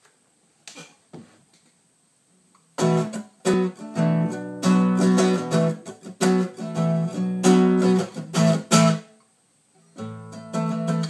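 Acoustic guitar strummed in loud, rhythmic, percussive chords that start about three seconds in after a few faint taps, break off briefly near the end, then start again.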